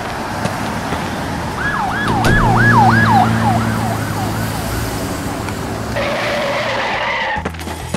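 Ambulance siren yelping in fast, repeated falling sweeps, about three a second, growing louder and then fading away about halfway through, over a steady low hum.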